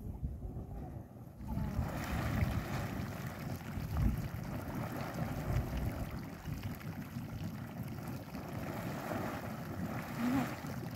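Small geyser boiling in its pool, bubbling and splashing up water in a continuous churning that grows louder after the first second and a half.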